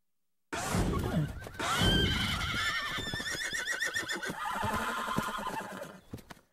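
Horse whinnying: a run of quavering, wavering whinnies starting about half a second in and trailing off near the end, with low thuds under the first calls.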